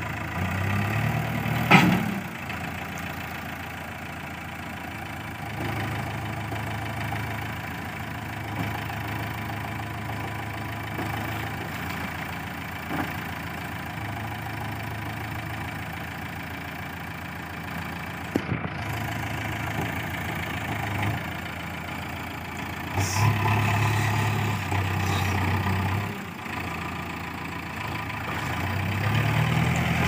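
JCB 3DX backhoe loader's diesel engine idling, picking up under load several times as the hydraulics swing the backhoe arm, loudest about two-thirds of the way through. A sharp clank about two seconds in.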